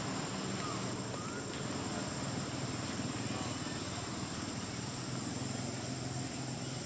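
Steady low engine hum running throughout, with a faint outdoor hiss; a couple of faint short high chirps about a second in.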